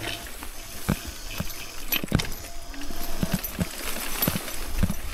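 Electric downhill bike rattling and jolting over rough, uneven field ground: irregular knocks and clatter from the bike's frame and parts, with tall grass brushing past.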